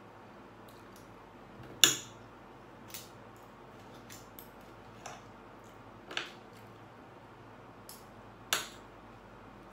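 Metal spoon and fork clinking and scraping on a ceramic dinner plate while cutting and scooping food, a handful of sharp clinks spread out, the loudest about two seconds in.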